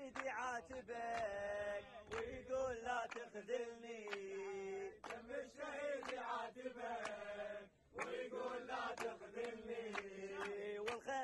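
A group of men chanting together in unison, with sharp hand claps marking the beat.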